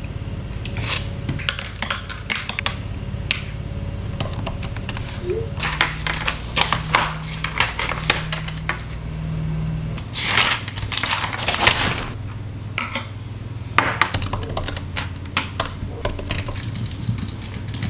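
Clicks and taps of desk objects being handled, then typing on a laptop keyboard, irregular keystroke clicks coming in quick runs, over a steady low hum.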